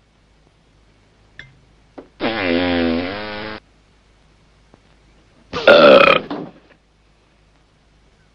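Two comic gas sound effects, burp- or fart-like. The first comes about two seconds in and lasts about a second and a half, dropping in pitch and then holding steady. The second, louder and shorter, comes about five and a half seconds in.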